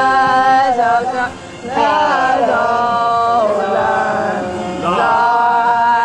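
Voices singing a slow melody in long held notes, in several phrases with short breaks between them.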